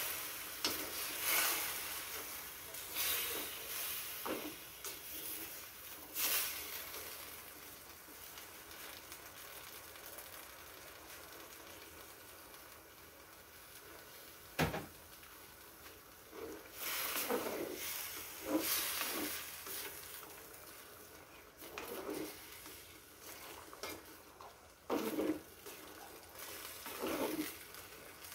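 Chicken and vegetable stir-fry sizzling in a wok, with a spatula scraping and tossing the food in short bursts, quieter through the middle stretch. A single sharp knock comes about fifteen seconds in.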